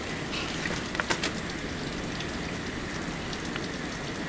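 Heavy hurricane rain falling steadily, a dense even hiss, with a few sharp taps about a second in.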